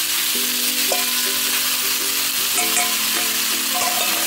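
Marinated beef strips sizzling on a hot 11-gauge steel griddle right after being tipped on, a steady frying hiss. Steady tones that step to new pitches every second or so run underneath.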